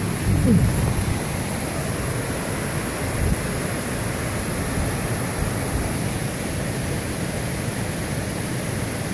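Steady rushing of a waterfall and creek, a constant even roar of falling water. A couple of faint low knocks sound early and about three seconds in.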